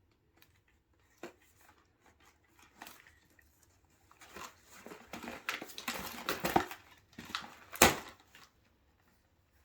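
Plastic and cardboard doll packaging being handled and pulled apart: scattered clicks, then a stretch of dense crinkling and rustling, with one sharp snap near the end.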